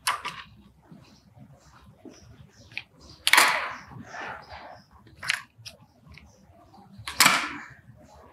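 Fabric rustling and swishing as it is handled and folded, in several short irregular bursts, the loudest about three seconds in and again about seven seconds in.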